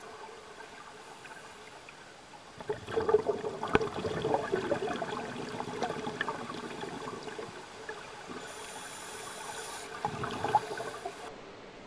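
Underwater bubbling and gurgling of air from scuba divers' regulators, rising about three seconds in and easing off near the end.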